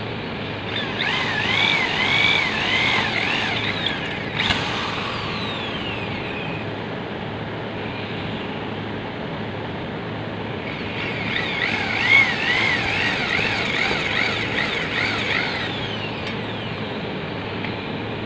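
Corded electric hand drill boring holes through a thin metal plate, twice: a high, wavering squeal of the bit cutting metal for about three and a half seconds near the start and about five seconds a little past the middle, with a sharp knock at the end of the first hole. A steady background noise runs underneath.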